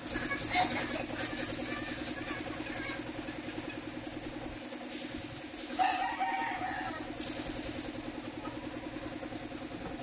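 A compressed-air paint spray gun hisses in four short bursts as its trigger is pulled and released, over a steady pulsing hum from an air compressor. A rooster crows about six seconds in.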